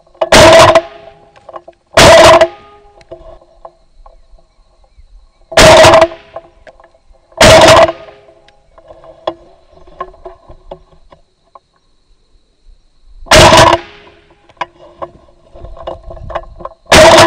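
Six shotgun shots at doves, very loud and sharp: two close together near the start, two more about six and eight seconds in, and two near the end. Faint guitar music sits underneath between the shots.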